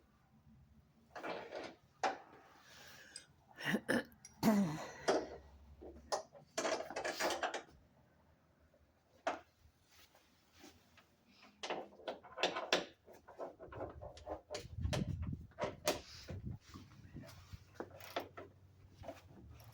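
Irregular clanks, knocks and scraping of hand tools on metal hardware while the bolts of a truck bed tool box's hinge are tightened, with a few dull thumps about fifteen seconds in.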